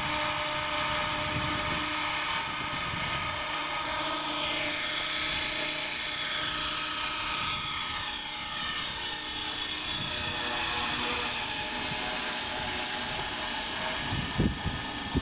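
Electric RC helicopter (eSky Belt CP with a four-blade rotor head) in flight: a steady high whine of the motor and belt drive with the rotor buzz, its pitch sliding up and down as it manoeuvres. It drops in loudness near the end.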